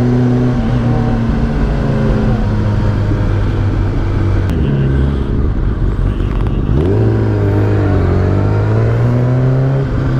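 Kawasaki Ninja ZX-10R's inline-four engine heard from the rider's helmet while riding, with wind noise. The engine note eases down about a second in. About seven seconds in, the revs climb sharply as the bike accelerates, dip briefly, then settle into a steady pull.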